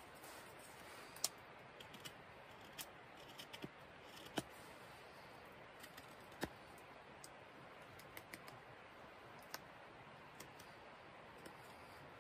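Carbon-steel knife whittling dry pear wood: irregular small clicks as the blade cuts and pares off shavings, over a faint steady hiss.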